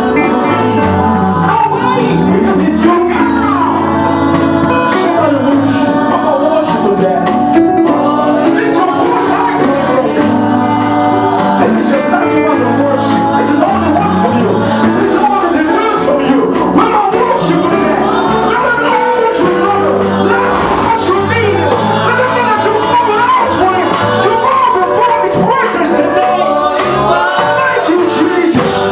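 Live gospel music: a band with bass and a steady beat, with singing over it, in a large hall.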